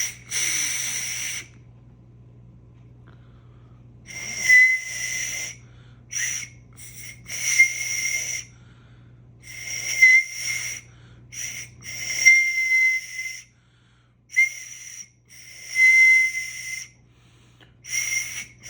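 Breathy whistle from blowing across the open end of a ballpoint pen cap whose back hole is closed with the thumb, flute-style. About eight separate blows of one to two seconds each, each holding the same high note with a lot of air noise around it.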